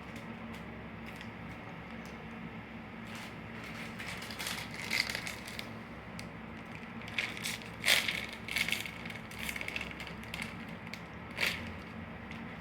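Eating noises: irregular crackly crunching and crinkling from snack food and its packaging, in short clusters with the sharpest bursts about five, eight and eleven seconds in, over a faint steady low hum.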